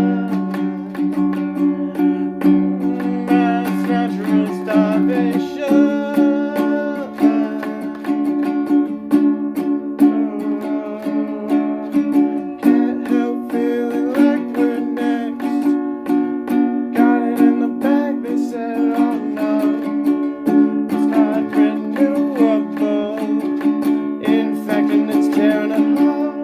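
Instrumental stretch of a song: a small acoustic string instrument strummed in quick, even strokes, the chord changing a few times.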